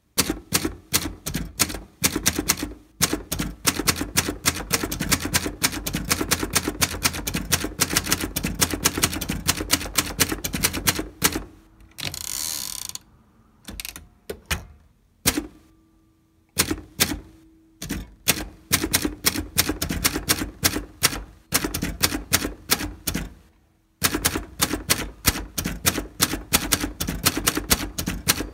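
Hermes 2000 manual portable typewriter being typed on: quick runs of key strikes with short pauses between words. About twelve seconds in comes a brief rushing, sliding sound as the carriage is returned for the next line, followed by a few slower single strokes before fast typing resumes.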